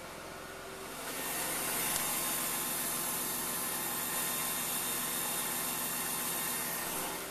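Electric fuel pump of a BMW E34 525i running with a steady whirr, the sign of a failing pump. A louder rushing hiss rises over it about a second in and drops away near the end.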